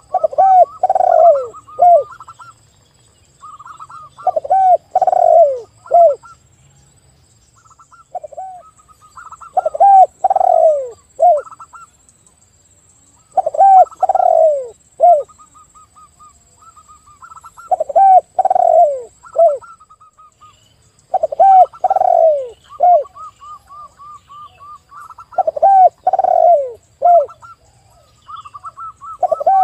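A spotted dove and a zebra dove cooing together. Phrases of low coos, each note falling in pitch, repeat about every four seconds, with a faster, higher run of short cooing notes between and over them.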